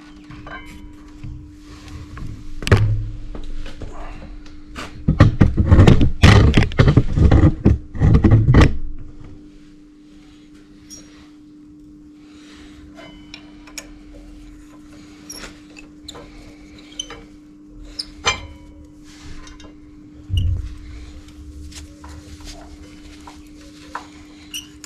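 Hand tools on a motorcycle's front brake caliper as the brake pad bolts are loosened: scattered metallic clicks and clinks, with a loud run of rapid rattling clicks from about five to nine seconds in, over a steady hum.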